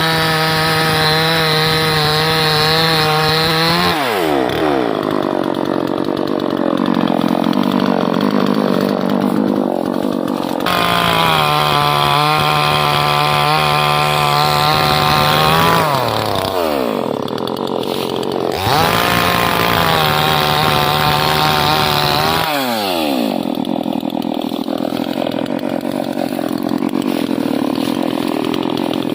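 Chainsaw engine revved to full throttle three times, holding a high, steady pitch for a few seconds each time. In between and near the end it drops to a lower, rougher pitch.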